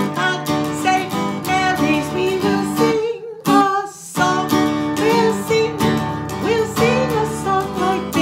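A woman singing a children's song while strumming chords on an acoustic guitar, with a short break between phrases about three seconds in.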